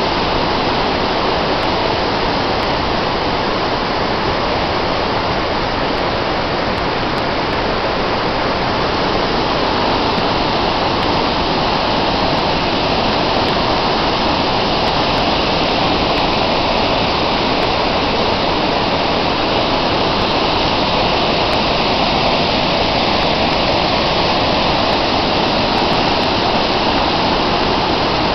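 Montmorency Falls, a large waterfall plunging into its basin, giving a loud, steady, unbroken rush of falling water.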